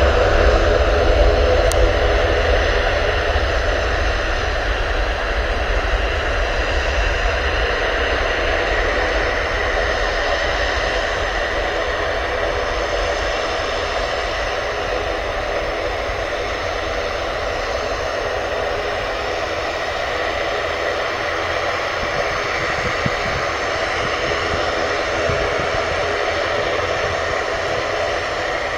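Jet airliner's turbofan engines at take-off thrust during the take-off roll. A steady roar is heard from behind the aircraft, loudest in the first couple of seconds, then slowly fading as the aircraft accelerates away down the runway.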